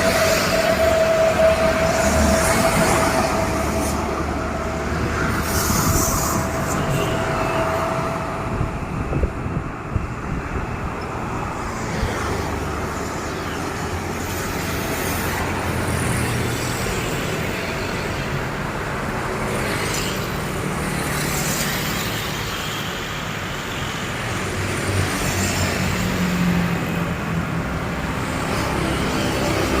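Heavy vehicles rumbling past continuously, with a steady high tone for roughly the first eight seconds that then fades out.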